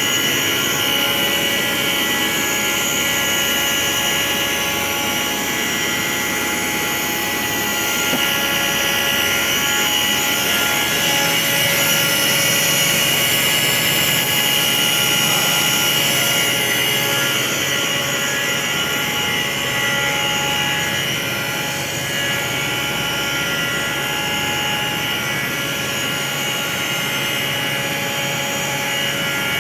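Steady whirring hum of industrial machinery: several steady tones over a broad rushing noise, a little louder from about 8 to 17 seconds in.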